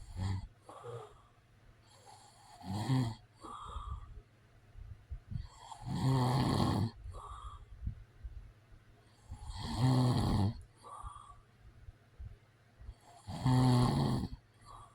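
A man snoring in his sleep: four loud snores, one about every three and a half seconds, with softer breaths between them.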